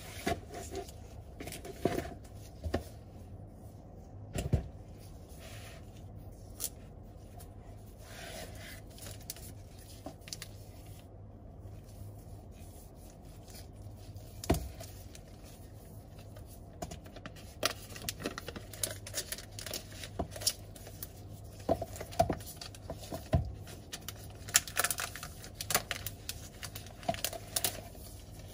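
Unboxing handling sounds: scattered taps, scrapes and rustles of packaging as gloved hands lift an iPad Pro tablet out of its box and turn it over. The clicks and scrapes come more often in the second half.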